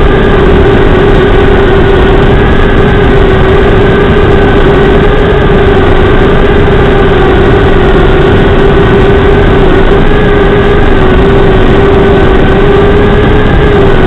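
Brushless motors and four-bladed props of a 2.5-inch FPV quadcopter (Xing 1404 4500kv motors) buzzing in flight, heard through the video transmitter's built-in microphone on the quad itself. The sound is loud and lo-fi, a steady whine whose pitch wavers slightly with throttle over a constant rush.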